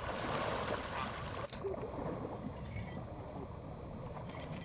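River water sloshing around a domestic elephant wading through a shallow river. The sound changes abruptly about a second and a half in, and there are two brief hissing splashes, one in the middle and one near the end.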